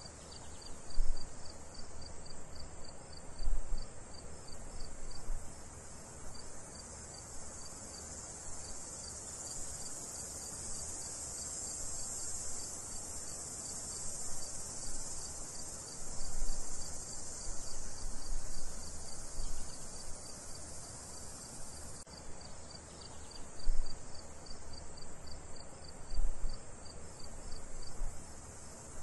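Crickets chirping in a regular, evenly spaced rhythm over a steady high insect chorus, with a few brief low thuds.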